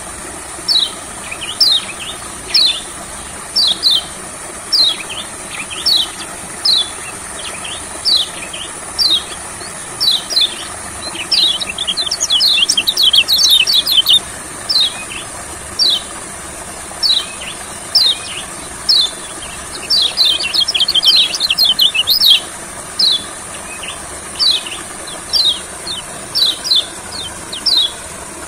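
Yellow white-eye (kecial kuning) calling: short high notes that sweep downward, given about once a second, breaking twice into rapid twittering runs, once near the middle and again about two-thirds through. A steady high insect buzz runs underneath.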